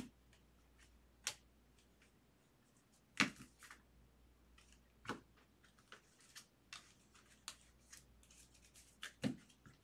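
Bowman trading cards flipped through and slid off a stack by hand, with scattered light clicks and taps of card against card. The sharpest taps come about three seconds in and again near the end.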